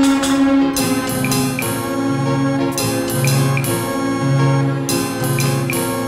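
Recorded band music with drums and percussion over a repeating low melodic line.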